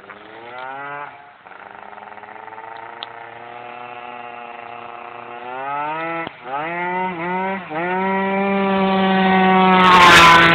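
Malaguti Phantom F12 scooter with a Polini 70cc racing kit, its two-stroke engine revving high as it comes closer. The throttle is shut briefly once early on and three times in quick succession around six to eight seconds in, then held open as the scooter grows loudest passing close by near the end.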